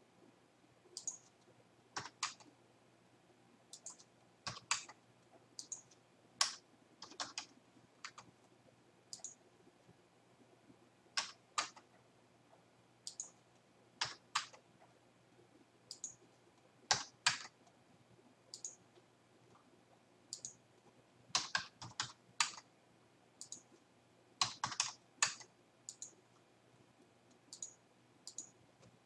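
Computer keyboard keystrokes and mouse clicks, scattered single presses and short bursts of a few keys with pauses between them, as numbers are typed into fields.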